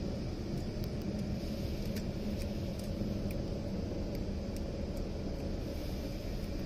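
Automatic car wash air dryer blowers running, a steady rumble and whir heard from inside the closed car during the drying stage.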